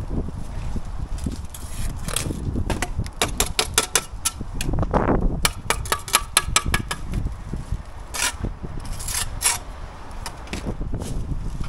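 Bricklayer's trowel tapping and scraping on brick and mortar as pieces are bedded in, with a quick run of sharp taps in the middle, over a low rumble.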